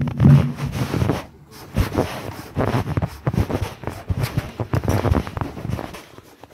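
A marching band's final low brass chord cuts off about half a second in. After it comes irregular rustling and buffeting: wind and handling noise on a phone microphone as it is carried along.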